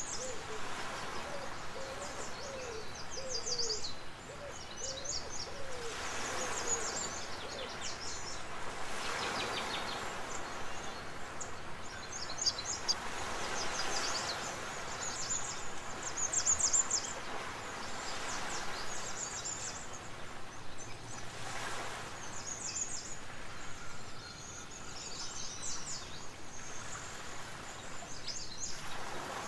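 Birds calling over a steady hiss: a run of short, low hooting notes in the first few seconds, then many quick high chirps throughout.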